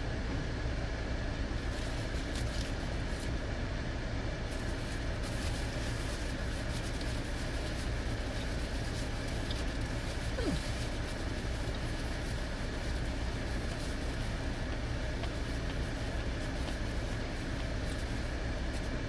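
Steady low hum inside a car cabin, with faint crinkling of a foil sandwich wrapper and chewing; a short squeak about halfway through.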